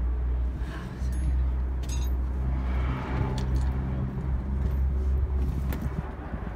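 A motor vehicle's engine running close by, a steady low hum that swells about halfway through and fades near the end.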